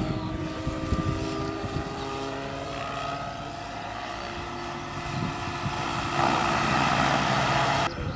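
Radio-controlled scale model helicopter in flight: a steady whine of several tones over rotor noise. It grows louder with a hiss about six seconds in, then breaks off abruptly near the end.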